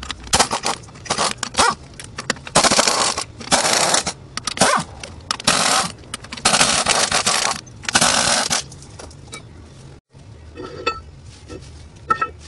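Pneumatic impact wrench with a 15/16-inch (24 mm) socket hammering the axle flange nuts off a truck's drive hub, in a string of short bursts of under a second each. Near the end there are a few light metal clinks.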